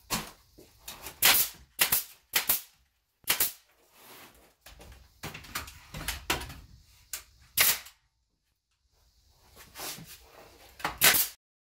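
Porter-Cable pneumatic nail gun firing into the wooden frame of a box spring: several sharp cracks at uneven intervals, with a pause of about a second near the end before a last pair of shots.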